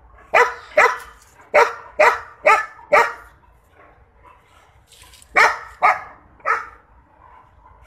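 Dog barking in two runs: six sharp barks over about three seconds, a pause of about two seconds, then three more.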